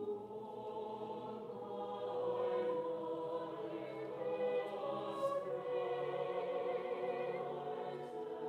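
Mixed choir singing unaccompanied, holding sustained chords in overlapping parts that swell and shift, the high voices strongest in the middle.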